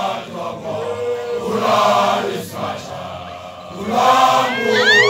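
A group of voices chanting in short phrases, a Sesotho initiation chant, with a quieter stretch midway. Near the end, high sharply rising calls break in over the singing.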